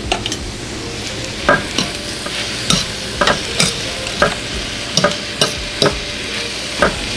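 Metal spoon stirring kale, peppers and mushrooms in a stainless steel skillet: about a dozen sharp clinks and scrapes against the pan, roughly two a second, over a steady sizzle of the vegetables frying.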